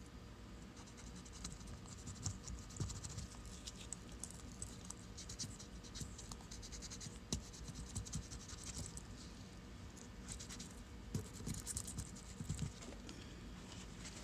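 Cotton swab wet with WD-40 scrubbing inside a Mitutoyo No. 1507 dial indicator's movement: a faint, irregular scratching and rubbing with many small clicks, as the swab cleans out the sticky old grease.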